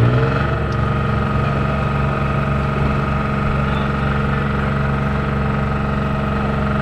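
A boat's engine running under load, with a steady droning note. Its pitch rises over the first half-second, then holds level.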